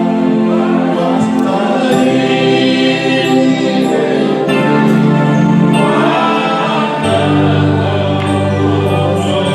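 Gospel music: a choir singing over held chords, with a deeper bass note coming in about seven seconds in.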